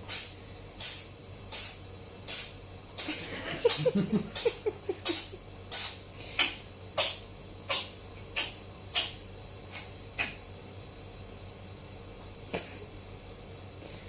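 Domestic cat sneezing in a long fit: short, sharp, hissy sneezes about one every three quarters of a second for some ten seconds, then one more near the end.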